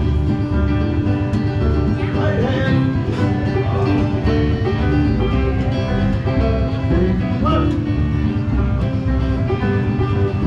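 Bluegrass-style music on plucked string instruments over a steady, regular bass beat.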